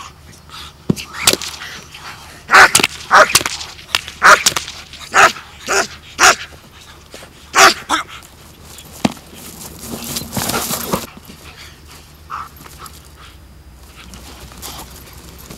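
German shepherd barking hard during protection work, about a dozen loud, sharp barks in quick succession, then quieter.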